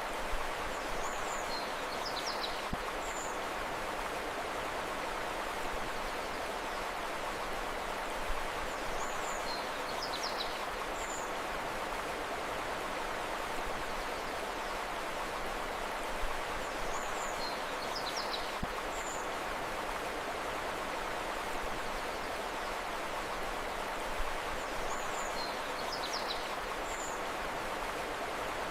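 Steady rushing of a flowing river. A short bird call of a few high chirps comes back about every eight seconds, four times, identical each time.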